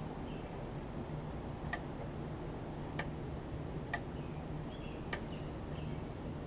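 Four sharp clicks about a second apart from the mower's throttle control and linkage being worked by hand, over steady low background noise.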